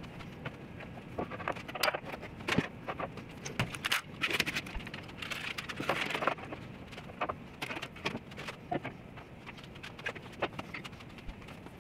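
Metal pipe clamps and solid oak panels being handled on a table saw top: irregular clinks and knocks of steel on steel and wood, with a stretch of scraping around the middle as a panel is slid into place.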